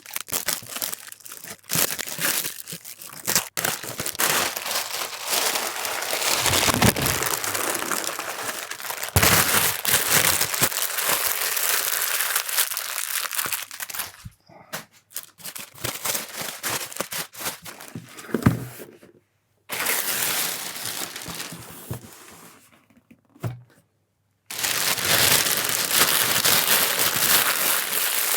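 Packaging wrap crinkling and tearing as a parcel is cut open and unwrapped by hand, in dense crackling runs with scattered sharp clicks, cutting off abruptly a few times.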